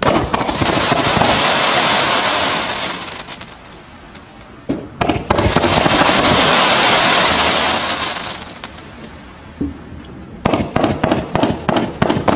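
Tai Pan Barracuda 77-shot firework cake firing: two loud spells of hissing from spark fountains, each about three seconds long, the second opening with a sharp crack. From about ten seconds in, a rapid run of shots cracks out at about three a second.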